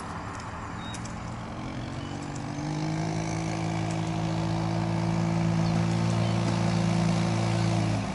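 Sport go kart's small engine running at a steady pitch as the kart approaches, growing louder about two and a half seconds in, with the note dropping away near the end.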